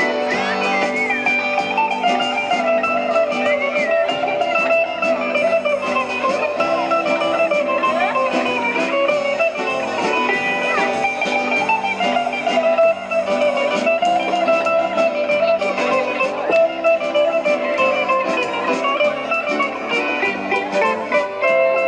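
Live band playing instrumental Greek folk dance music, continuous with a steady dance rhythm.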